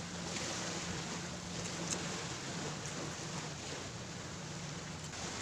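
Sea waves washing onto a sandy beach, a steady rushing noise, with a faint low steady hum underneath.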